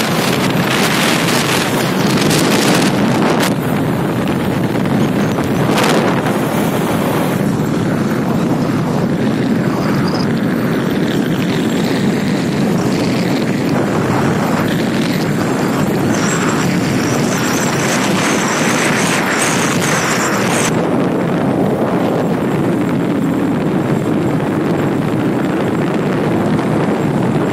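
Heavy wind noise buffeting the microphone over a Bajaj Pulsar NS200 motorcycle's single-cylinder engine running steadily at cruising speed.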